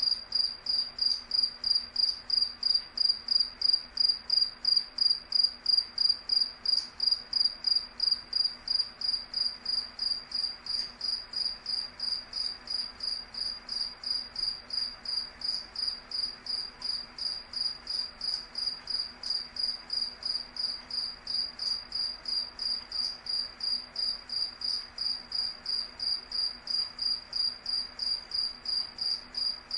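Cricket chirping steadily in an even rhythm of about three high chirps a second.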